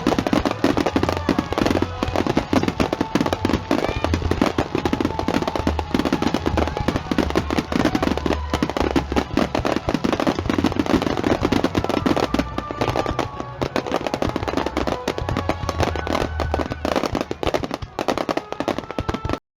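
Aerial fireworks display: a dense, continuous crackling of many small bursts over a deep rumble. The sound cuts off suddenly near the end.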